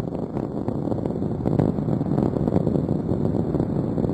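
Rocket noise from Space Shuttle Discovery's solid rocket boosters and three main engines during ascent: a dense, steady rumble with frequent crackling.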